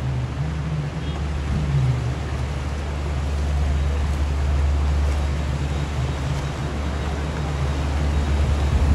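Hyundai flatbed tow truck driving through deep floodwater: its engine running steadily while the water rushes and splashes around it.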